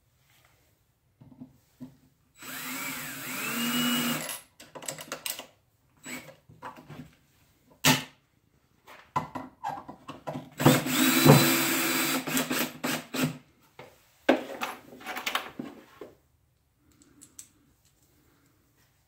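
DeWalt cordless drill/driver driving wood screws through a caster wheel's mounting plate and washer into a wooden block, in two runs of a few seconds each, the motor's whine rising in pitch as it speeds up. Short clicks and knocks of handling the screws, washers and drill come between the runs.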